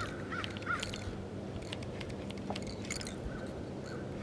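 Birds calling outdoors: a few short, wavering chirps in the first second and fainter ones near the end, over a faint steady low hum.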